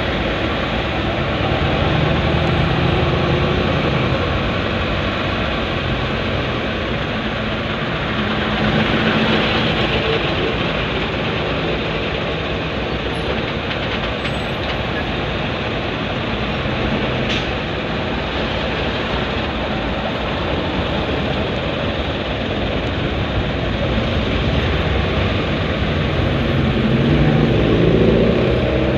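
Congested road traffic heard from inside a vehicle: the steady noise of car and truck engines running in slow stop-and-go flow, swelling now and then as heavy trucks move alongside. A brief click about seventeen seconds in.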